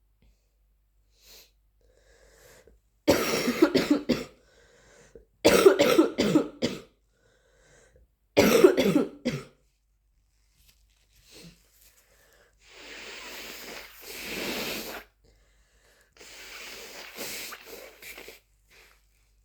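A person with flu coughing in three harsh fits of several quick coughs each. Then two softer, drawn-out nose blows, each about two seconds long.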